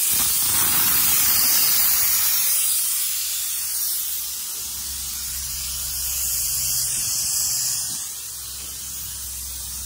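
A steady hiss, louder for the first few seconds, with a low hum joining about four and a half seconds in.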